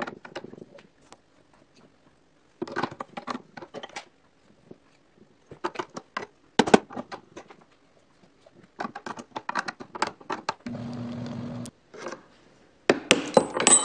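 Repeated small clicks and knocks of a nut driver working the jaw screws of a homemade wooden lathe's four-jaw chuck, adjusted to take out a wobble. About three-quarters through, the lathe's electric motor runs for about a second, spinning the chuck to check it, and near the end there is a louder metallic clatter with ringing.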